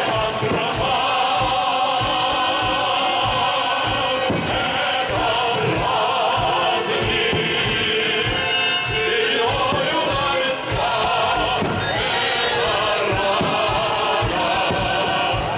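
Military band and choir performing a patriotic march song, with many short low thuds through the music.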